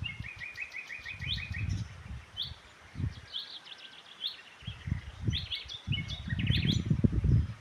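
Songbirds chirping and calling, one giving a quick trill of about nine notes in the first second and a half, with more chirps clustering near the end. Under them, irregular gusts of low rumbling noise come and go, loudest in the last two seconds.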